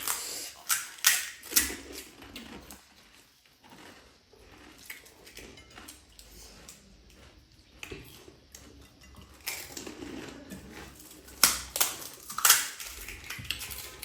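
Crisp panipuri shells crunching in short bursts of crackling, loudest in clusters near the start and again toward the end.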